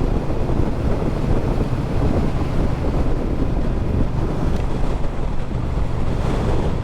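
Wind buffeting the microphone of a moving motorcycle, with the Triumph Bobber's 1200 cc parallel-twin engine running steadily underneath.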